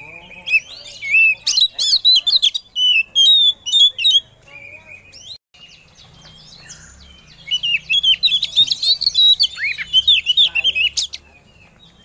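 Oriental magpie-robin (kacer) singing in two rapid bouts of varied high chirps and whistles, with a pause of about three seconds between them. The song is billed as a female calling to males.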